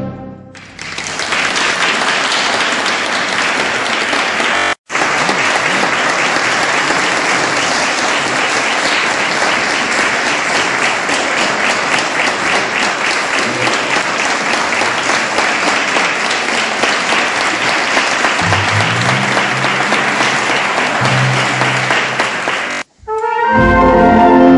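Audience applauding steadily for about twenty seconds after a brass piece ends, with two sudden brief dropouts; near the end the brass music starts again.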